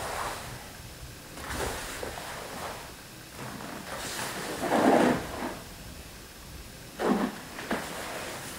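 Karate gi swishing and snapping and feet sliding and stamping on the floor as kata techniques are performed: a string of short swishes, the loudest about five seconds in and two sharper ones near the end.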